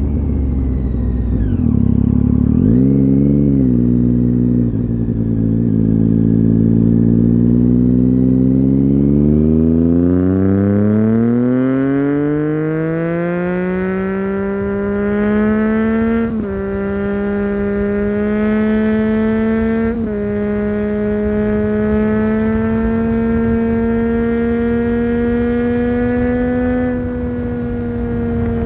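2009 Triumph Street Triple 675's three-cylinder engine, with a Leovince GP 3-2 exhaust and dB killer, being ridden hard. After a short rise and fall in revs a few seconds in, the note climbs in one long pull as the bike accelerates. About two-thirds through there are two quick upshifts that briefly drop the note, and it then holds high and steady before easing off near the end.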